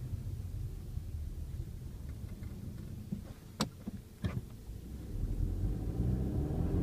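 Car with a seven-speed DQ500 DSG gearbox, heard from the cabin: low engine and road rumble eases off, two sharp knocks come about two-thirds of a second apart near the middle, then the engine pulls harder again. The knocks are the fault knock from the DSG around the 2nd–3rd gear shift.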